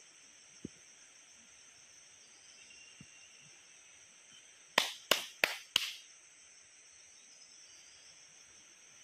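Steady high-pitched insect chorus, with four sharp clicks in quick succession, about three a second, roughly five seconds in.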